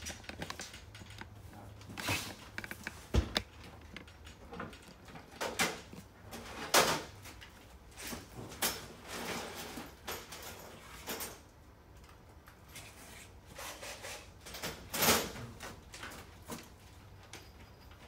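Intermittent knocks, clicks and rubbing of a metal partition-wall door frame being handled and fitted against an upright post, with a sharp click about three seconds in and louder knocks around seven and fifteen seconds in.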